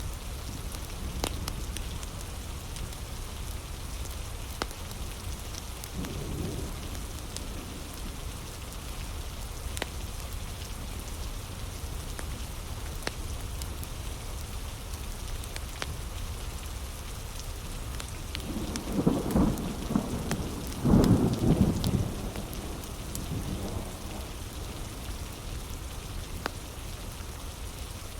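Heavy rain falling steadily, with scattered sharp pops and drips. About two-thirds of the way in, a low roll of thunder swells twice over a few seconds, louder than the rain, then fades.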